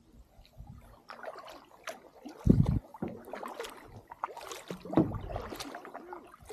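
Kayak being paddled: paddle blades dipping and splashing in the water in irregular strokes, with two dull thumps about two and a half seconds apart.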